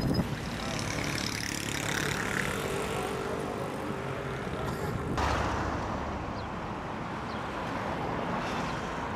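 Street traffic: cars driving past on a city road, a steady noise of engines and tyres. The sound changes abruptly about five seconds in.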